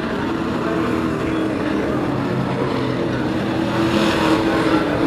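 A pack of short-track race trucks' engines running at racing speed, getting louder about four seconds in as trucks come by close.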